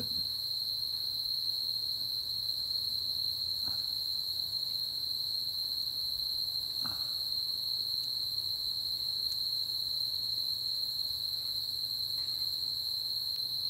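A steady high-pitched trill, with two faint light taps, about four and seven seconds in, from a paint marker dabbing the cylinder head bolt heads.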